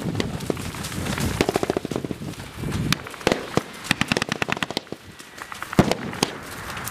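Small-arms gunfire: sharp cracks in irregular strings, some coming as quick bursts like automatic fire.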